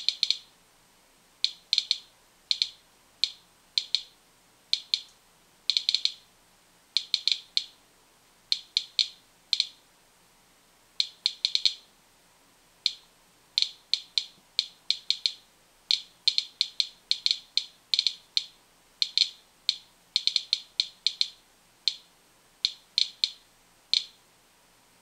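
Medcom Inspector handheld Geiger counter clicking out detected counts: short, high-pitched chirps at irregular intervals, sometimes singly and sometimes in quick clusters. The click rate matches a reading of about 0.6 µSv/hr from a packaged kelp sample, which the tester takes to be above kitchen background.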